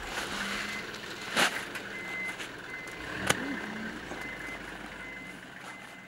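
A vehicle's reversing alarm beeping at an even pace, about once every three quarters of a second, over a low rumble, with two sharp knocks about one and a half and three seconds in. The sound slowly fades.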